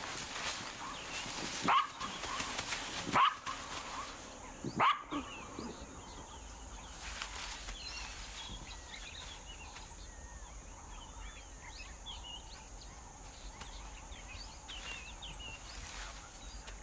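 Black-backed jackal yelping three times, about a second and a half apart, each call a sharp sweep in pitch. Afterwards small birds chirp faintly over a steady high-pitched drone.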